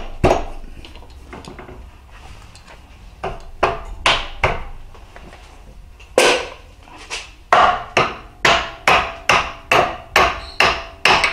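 Sharp metal clacks of a keyless drill chuck's R8 shank being knocked up into a Bridgeport milling machine's spindle, a few spaced ones and then a quick run of about two or three a second in the second half. The chuck is being test-fitted past the newly replaced collet alignment set screw.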